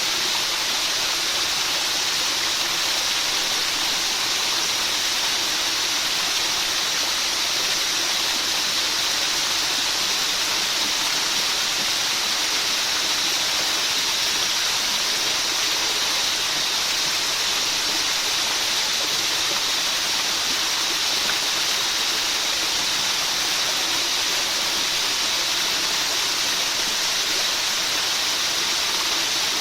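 Steady rain, a dense, even hiss that stays unchanged, with no single drops standing out.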